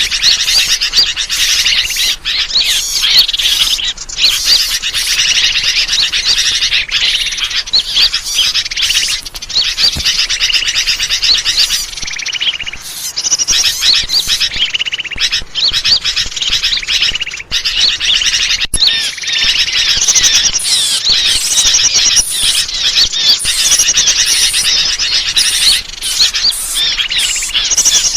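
Bird-lure recording: a dense, continuous chorus of many small birds chirping and trilling over one another, loud and busy throughout.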